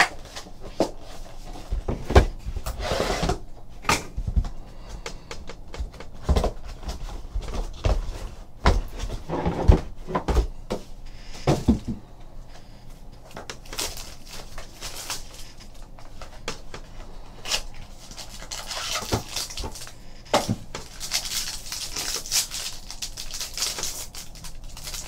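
Cardboard trading-card mini-boxes handled, with repeated knocks and taps as they are lifted out and stacked on a table. Near the end a foil card pack crinkles as it is taken out and opened.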